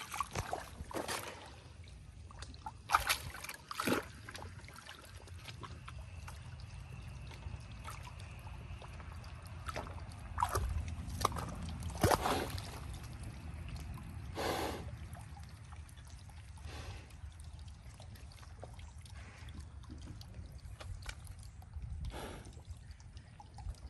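Duroc pig rooting with its snout in a mud puddle for grubs: wet sloshing and splashes of mud and water at irregular intervals, over a low steady rumble.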